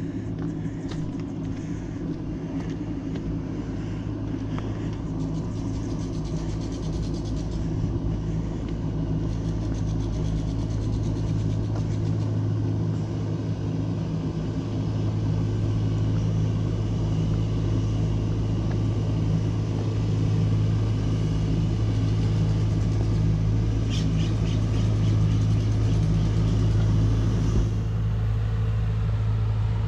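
Steady low rumble with a constant low hum, growing slightly louder over the stretch.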